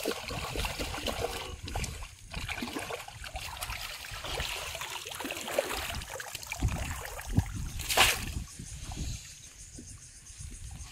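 Shallow pond water splashing and trickling as a hand gropes inside a bamboo polo fish trap and lifts a fish out, with one sharp, louder slap about eight seconds in.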